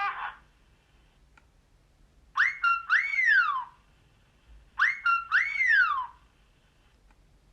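Alcatel OT 735 mobile phone ringtone: a synthetic whistle phrase of quick upward chirps, a short steady note, then a long rising-and-falling swoop. It plays twice, about two and a half seconds apart, with silence between.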